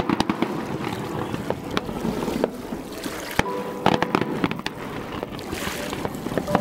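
Fireworks going off: an irregular series of sharp bangs, pops and crackles from aerial shells and fountains, over a steady noisy background.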